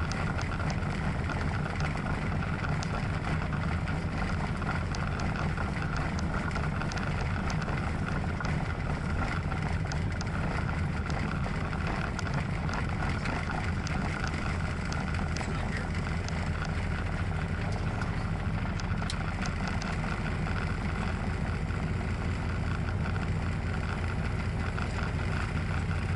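Tecnam P2002 Sierra's four-cylinder Rotax engine and propeller running steadily at low power, heard inside the cockpit as a constant drone.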